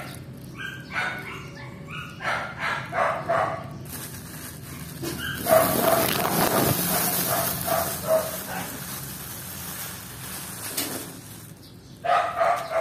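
A young tabby kitten mewing in short, repeated high cries. A plastic bag crinkles loudly for several seconds in the middle as a hand handles the kitten, and the kitten cries again near the end.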